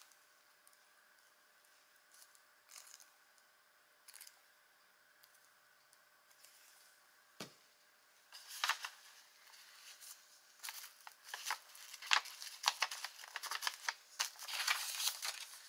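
Paper being cut with scissors and handled: a few faint taps and a soft thump on the desk, then from about eight seconds in a run of quick, crisp snips and paper rustles.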